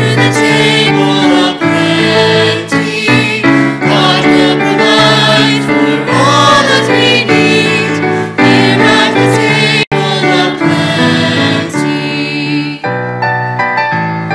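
Church choir singing a hymn with piano accompaniment. Near the end the voices stop and the piano plays on alone.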